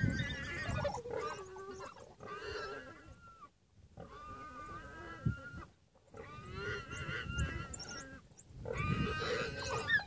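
Warthog squealing in a string of about five drawn-out, wavering cries, with low grunting sounds underneath, as a pack of African wild dogs pulls it down and feeds on it.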